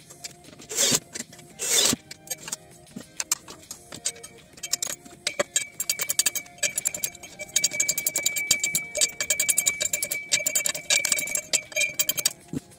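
Cordless drill with a socket adapter spinning in two short bursts, driving nuts onto a steel base plate, then a ratchet wrench clicking rapidly and steadily as the nuts on the drill-stand column's flange are tightened by hand. Background music plays under it.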